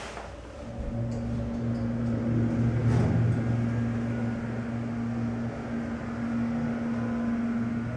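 Hydraulic elevator's pump motor starting up under the cab about a second in, then running with a steady low hum as the car climbs.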